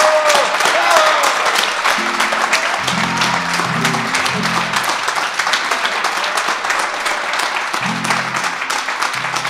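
An audience applauding steadily, with a rising-and-falling cheer at the start. A few low instrument notes sound beneath the clapping partway through and again near the end.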